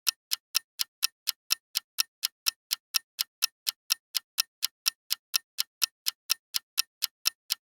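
Countdown-timer clock ticking sound effect: sharp, even ticks at about four a second, timing the guessing pause of a quiz question.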